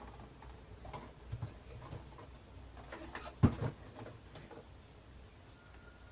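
Light handling noise of boxed mug-set items: scattered small clicks and taps, with one sharper knock about halfway through.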